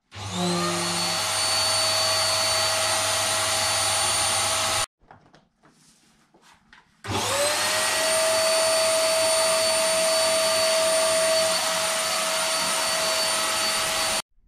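Electric air pump inflating a PVC inflatable boat. The motor spins up with a rising whine and runs steadily for about five seconds, then cuts off. It starts up again in the same way and runs about seven seconds more before stopping abruptly.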